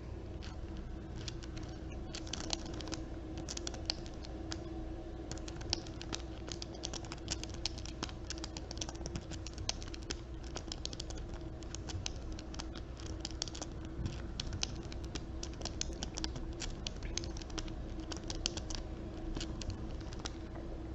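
Small hard objects being handled by hand, clicking and tapping against each other in quick, light, irregular runs, over a steady low hum.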